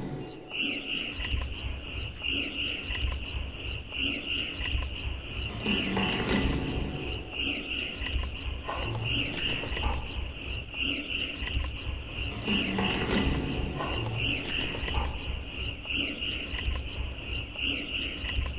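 Soundscape soundtrack of the dance performance: an irregularly pulsing low rumble under a fluttering high buzz that holds steady, with scattered clicks.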